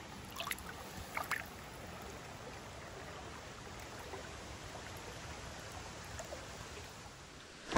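Small trout stream flowing steadily, with a few faint brief sounds about a second in and a sharp, loud knock at the very end.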